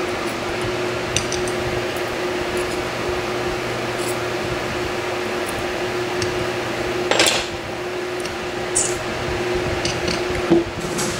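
Steady fan-like hum with one held tone. Over it come a few small metallic clicks and clinks, the loudest about seven seconds in, as tiny spool top pins are taken out of a Yale large-format interchangeable lock core.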